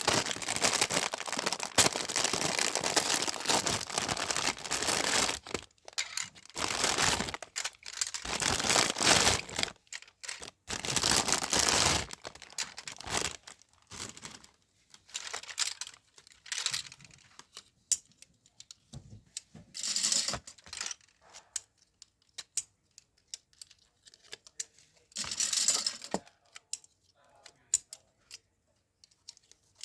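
Parcel packaging being torn open and crinkled by hand in long rustling stretches, then in shorter, scattered bursts after about twelve seconds.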